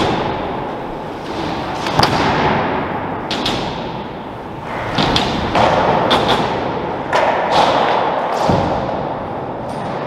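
Freecoaster BMX bike's tyres rolling and grinding over concrete and skatepark ramps, with several thuds as the wheels knock and set down. There is no freewheel ticking: the freecoaster hub coasts silently.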